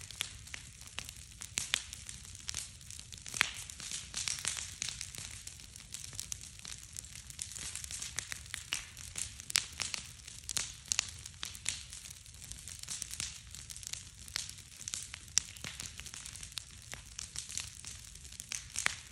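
Large wood bonfire crackling, with frequent irregular sharp pops over a steady low rumble.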